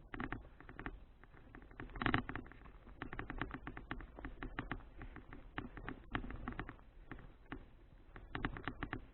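Folding bicycle rattling and clicking while being ridden: quick, irregular knocks over a low rumble, with a louder cluster of rattles about two seconds in.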